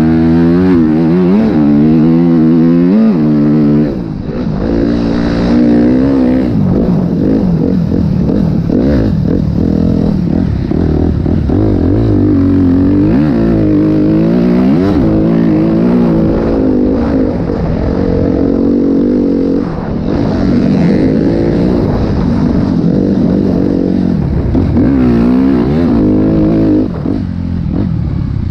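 Motocross dirt bike engine being ridden hard. Its pitch climbs and falls over and over as the throttle is opened and closed. It dips briefly about four seconds in, again around the middle, and near the end.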